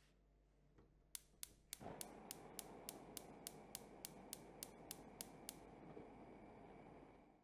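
Gas hob burner being lit: the spark igniter clicks about three times a second, and about two seconds in the gas catches with a steady rushing hiss of flame. The flame keeps burning after the clicking stops, a little over five seconds in.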